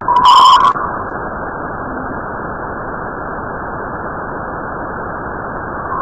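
A steady, static-like hiss with no high end, of the kind played as a planet's 'sound' (spacecraft radio data turned into audio). It opens with a brief, loud, bright tone lasting about half a second.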